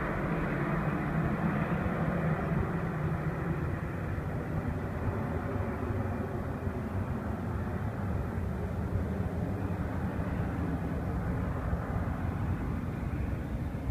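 Jet airliner's engines at takeoff power heard from across the airfield, a steady rumble that eases slightly as the plane climbs away.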